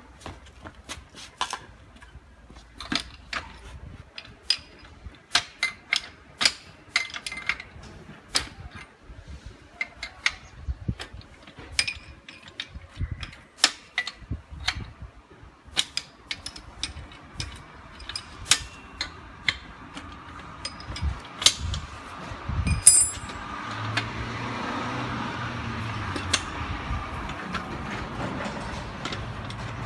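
Irregular metallic clicks and knocks of a spanner and the steel clamp bolts and rings of a manual butt fusion welding machine as the clamps are loosened and a plastic pipe is fitted into them. A steady low hum comes in during the last quarter.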